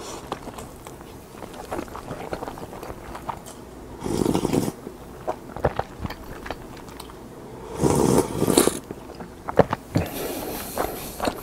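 Close-miked chewing of crisp roasted seaweed (gim), full of small crackling clicks, with two louder bursts of crunching about four and eight seconds in.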